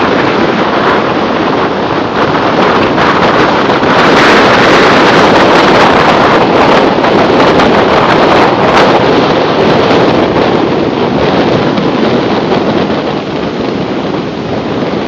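Strong wind left over from a hurricane, buffeting the microphone in a loud, continuous rush that swells in gusts, loudest a few seconds in and easing near the end.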